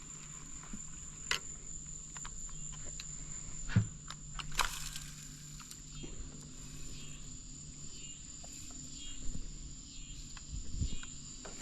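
Steady high-pitched chorus of insects such as crickets, with a few sharp knocks and clatters of gear being handled in a small boat.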